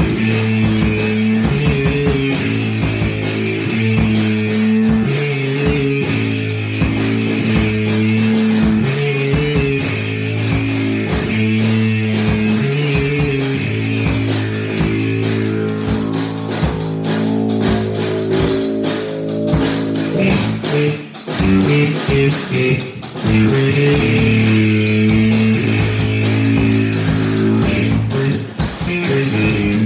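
Live electric bass guitar and drum kit playing a rock jam: the bass repeats a riff over a steady beat with cymbals. About two-thirds of the way through the riff breaks off briefly, then comes back.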